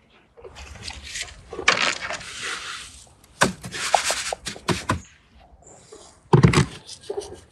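Wet coarse salt crunching and scraping as it is scooped from an enamel bowl and pressed by hand onto a metal baking tray, in several bursts with a few sharp clicks. A loud thump near the end.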